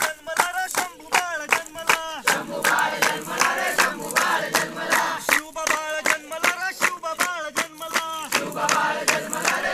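A group of people chanting together in unison, with steady rhythmic hand-clapping, a few claps a second. The voices come in two clearer sung stretches, one at the start and one in the middle, between rougher crowd shouting.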